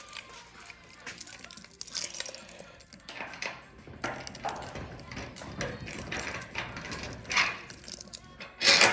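An irregular run of mechanical clicks, rattles and knocks, ending in a loud clatter.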